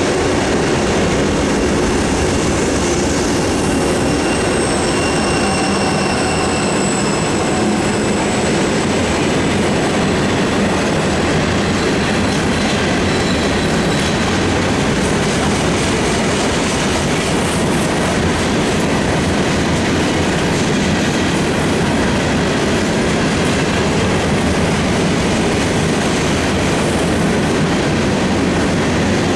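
A train rolling steadily past at close range, its wheels rumbling and clattering over the rail joints. In the first several seconds thin, high wheel squeals ring out over the rumble, then fade away.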